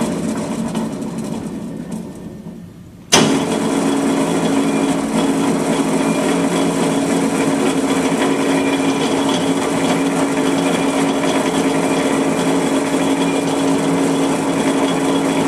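Cincinnati welding positioner's electric drive running with a steady hum. It dies away over the first three seconds, then starts again abruptly with a click and runs steadily on.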